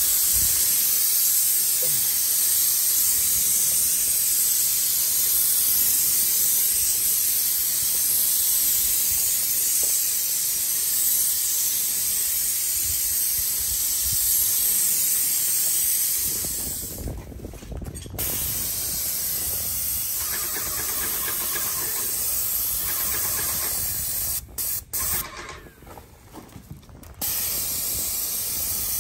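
Airless paint sprayer hissing steadily as paint is sprayed out of the gun's tip, dropping off briefly about two-thirds of the way through and again near the end.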